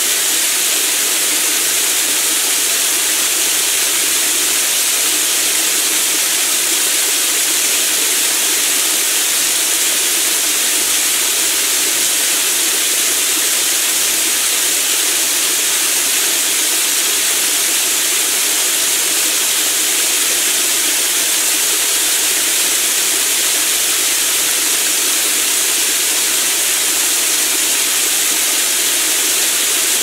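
Small waterfall falling down a rock face into a rocky pool: a steady, even rush of water, mostly a high hiss.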